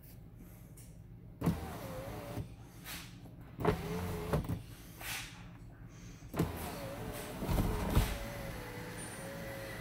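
2005 Nissan Armada's electric sunroof motor whining in two short runs, then running steadily from about two-thirds in as the glass slides back. Each run starts with a sharp click.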